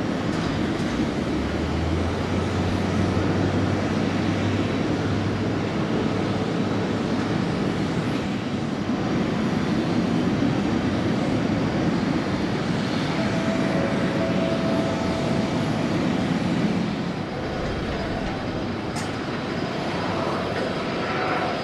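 Boeing 777-300ER's GE90-115B jet engines at taxi idle: a steady rumble and hiss that eases off slightly about 17 seconds in.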